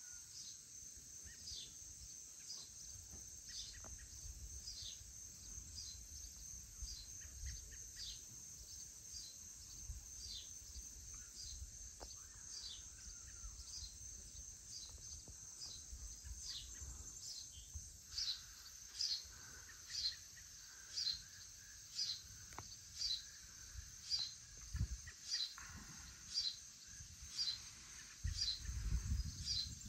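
A steady high chorus of evening insects, with a bird repeating a short falling chirp about once a second, louder from about two-thirds of the way in. Low wind rumble on the microphone swells near the end.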